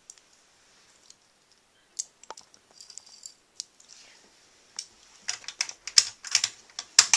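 Scattered small clicks and taps of a bobbin being handled and fitted into a sewing machine, growing quicker and busier from about five seconds in.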